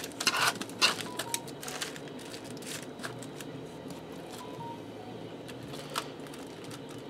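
A fork clicking and tapping against a metal sheet pan as raw chicken breasts are pushed into place on parchment paper. A quick cluster of sharp clicks comes in the first second, then scattered light taps, over a steady low hum.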